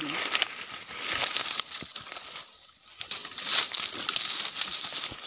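Footsteps crunching through dry leaf litter and brushing through forest undergrowth, a crackling rustle in two spells with a short lull about halfway through.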